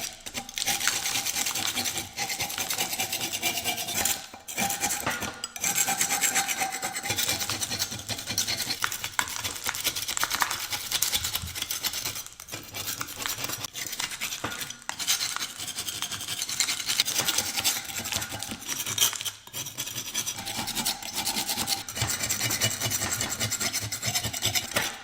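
Hand scraper scraping rust flakes off a heavily corroded cast iron differential housing, metal on rusty metal in runs of strokes lasting a few seconds each, broken by short pauses.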